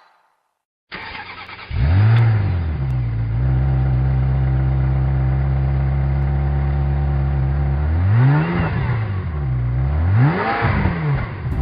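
Car engine being started: the starter cranks for under a second, the engine catches with a brief flare in revs and settles into a steady idle, then is revved up and back down twice in the second half.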